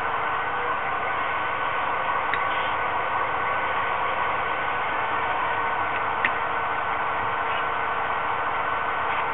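HO-scale diesel locomotive's DCC sound decoder idling through its small onboard speaker: a steady hissing engine sound with a faint hum in it, and two faint clicks, a couple of seconds in and past the middle.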